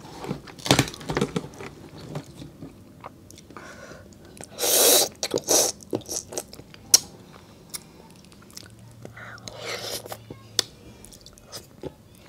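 Close-up eating sounds of a cooked lobster claw being sucked and chewed at its open end: two loud slurps, the first about five seconds in and a smaller one near ten seconds, among many small clicks of shell and mouth.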